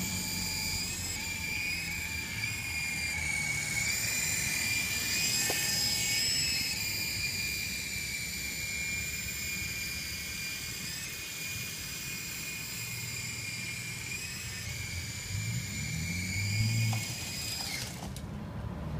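Syma S033G electric RC helicopter's motors and rotors whining steadily in flight, the high whine wavering slightly in pitch with the throttle, then cutting off suddenly near the end. A low rumble swells in the background a few seconds before the whine stops.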